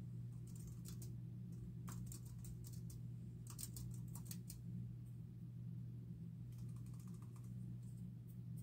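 Typing on a computer keyboard in short runs of keystrokes with pauses between them, over a steady low hum.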